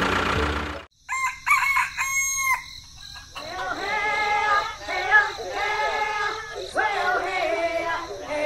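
A rooster crows about a second in, right after the earlier sound cuts off suddenly. Several seconds of wavering, chattering calls follow.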